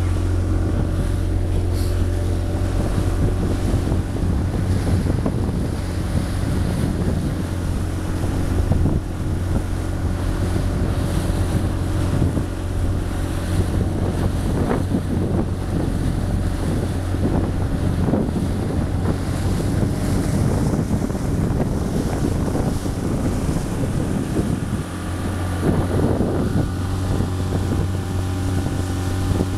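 Mariner outboard motor running steadily at speed, a constant engine drone, with water splashing against the hull as the boat cuts through choppy waves and wind buffeting the microphone.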